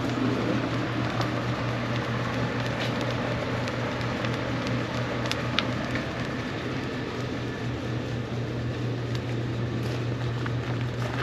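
Steady low mechanical hum under an even rushing background noise, with a few faint ticks.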